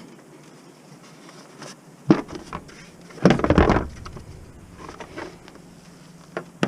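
Audi A4 engine cover being handled and pulled off: a knock about two seconds in, then a louder clatter lasting under a second, and a few lighter taps near the end.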